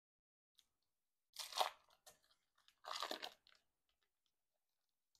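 Foil wrapper of a block of cream cheese crinkling as it is peeled open, in two short bursts about a second and a half apart.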